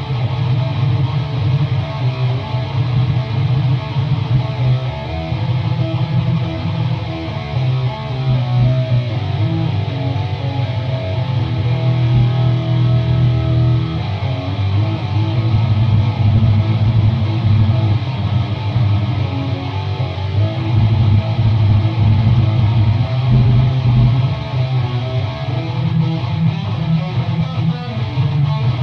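Jackson RR Pro Series electric guitar with an EMG 81 active humbucker pickup being played in continuous riffs, with a heavy low end.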